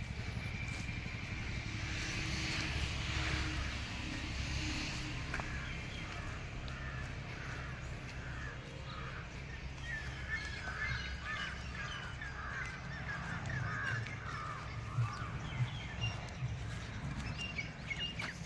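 Outdoor field ambience: a steady low rumble, with birds calling in many short repeated chirps from about halfway through, growing busier near the end.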